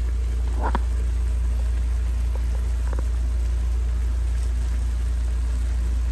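Instant ramen broth simmering in a pan, bubbling and crackling steadily with a few faint pops, over a steady low hum.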